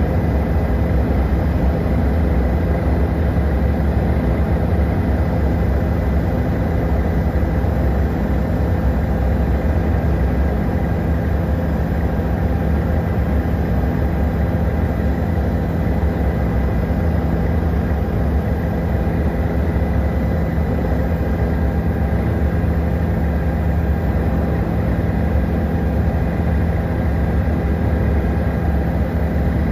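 Helicopter in steady flight heard from on board: a constant drone of rotor and turbine with a deep rumble and several steady tones, unchanging throughout.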